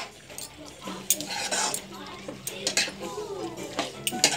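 Metal spatula stirring a thick curry in a metal kadhai, scraping and clinking irregularly against the pan's sides and bottom.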